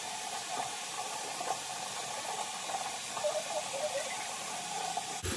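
Bathroom tap running steadily, an even hiss of water.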